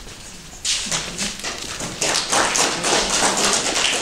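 Audience applauding: the clapping starts suddenly under a second in and grows louder about two seconds in.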